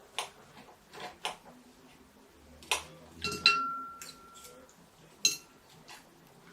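Dishes and cutlery being handled: a series of sharp clinks and knocks. One strike rings on as a clear, steady tone for about a second.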